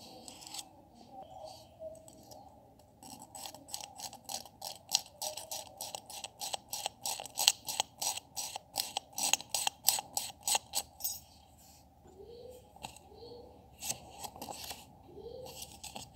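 Small metal blade scraping across a paper banknote on a concrete floor: a run of short, quick scratchy strokes, about four a second, for several seconds, then stopping.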